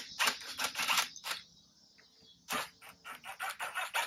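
Cordless impact driver hammering in short bursts as it backs out the clamp bolts of an ATV's handlebar brake master cylinder, with a pause of about a second in the middle.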